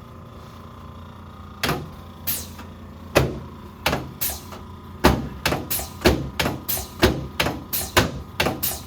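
A run of sharp impacts: a few spaced strokes, then from about halfway they quicken to roughly three a second.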